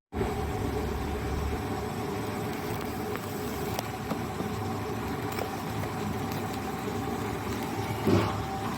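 Steady industrial drone of a DC electric arc furnace installation running, with a low hum and faint steady tones, a few light ticks, and a brief louder swell near the end.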